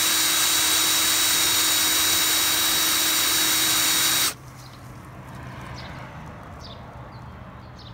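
Electric drill spinning the 2-inch dispensing auger at the bottom of a PVC-tube salt hopper, a steady whirring whine that cuts off suddenly a little past four seconds in. After it stops, a much quieter steady hiss with faint ticks as the feed salt keeps pouring from the spout.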